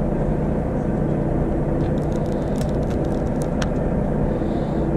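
Steady low drone of a fishing boat's engine running, with a few light sharp clicks about two to three and a half seconds in.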